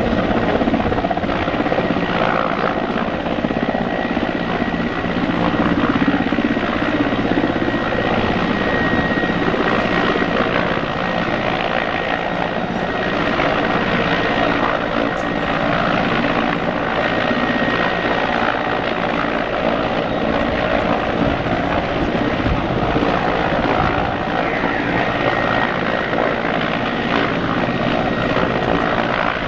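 Mil Mi-14PŁ naval helicopter hovering low over water: steady rotor and twin turboshaft engine noise, with a thin high turbine whine that comes and goes.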